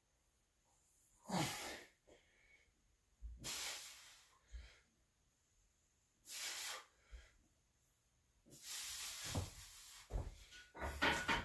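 A man breathing out hard in short, noisy bursts, about five times at irregular intervals, with the effort of exercise reps.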